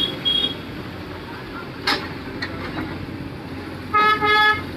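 Vehicle horn sounding two short blasts near the end over a steady vehicle rumble. A brief high beep comes at the start and a single sharp knock about two seconds in.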